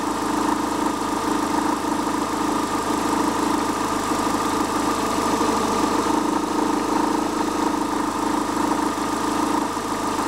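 Astra G 1.6 16V Ecotec (X16XEL) petrol four-cylinder idling steadily with a rattling, rumbling vibration, a noise that shows only at idle and below 1200 rpm. Something is vibrating in resonance: the owner has ruled out the auxiliary belt and intake piping, and the timing-belt tension reads OK.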